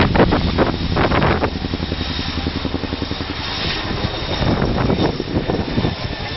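Boeing CH-47 Chinook tandem-rotor helicopter flying low, its rotors beating in a rapid, even rhythm over the engine noise. Wind buffets the microphone in the first second or so.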